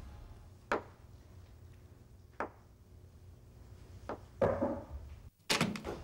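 A pencil tapped on a desk: a few sharp single taps, about one every one and a half to two seconds, then a louder knock and a quick cluster of knocks and clatter near the end.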